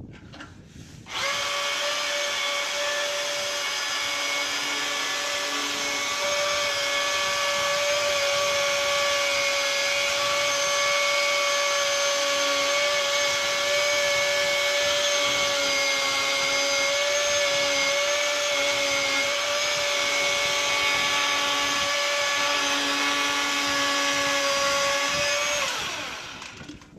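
Electric chainsaw running and cutting into cave ice: a steady high whine that starts abruptly about a second in and winds down with a falling pitch near the end as the trigger is released.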